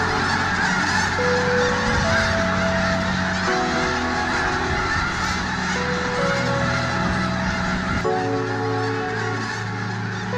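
A massive flock of snow geese honking and calling all at once in a dense, unbroken clamour as many birds take off and wheel overhead. Soft music with long held chords plays underneath.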